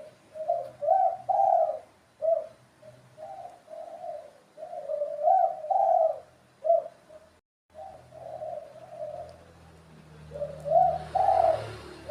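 Spotted dove (tekukur) cooing in repeated phrases of low, soft notes, with a short silent break a little past halfway.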